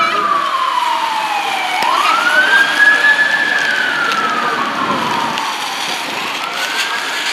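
Fire truck's siren on a slow wail, its pitch rising and falling about once every four to five seconds.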